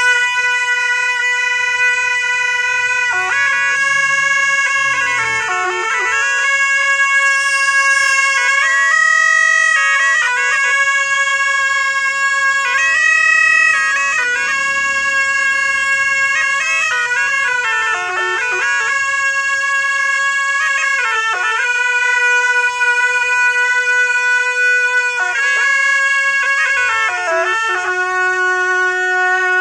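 Two gyaling, Tibetan Buddhist double-reed shawms, playing together: a slow melody of long held notes, each several seconds, linked by quick ornamented flourishes where the pitch changes, with no breaks.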